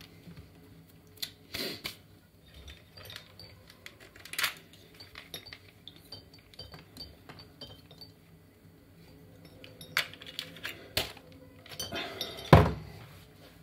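An electric hair clipper, switched off, and its plastic guard being handled: a scatter of small clicks and clinks, with a few louder knocks as the parts are knocked together or set down.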